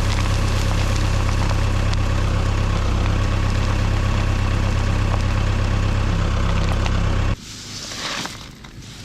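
An engine running steadily at constant speed with a deep, even hum, which cuts off suddenly about seven seconds in; after it, quieter crunching and rustling.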